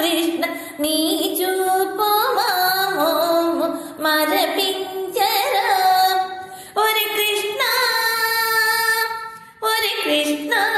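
A female voice singing a Telugu devotional song to Krishna in a Carnatic style, holding long notes that bend and slide between pitches. There is a brief break about nine and a half seconds in.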